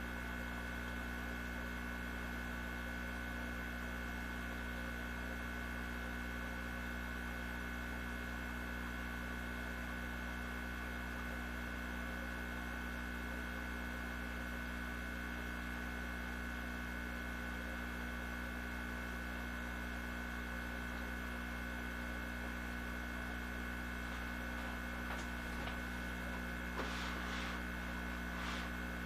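Steady electrical hum made of several fixed tones, with a few faint taps near the end.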